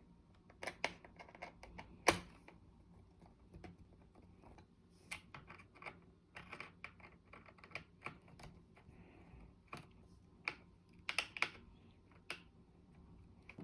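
Faint, irregular clicks and taps of a small screwdriver driving screws into a laptop's plastic access panel, with one sharper knock about two seconds in.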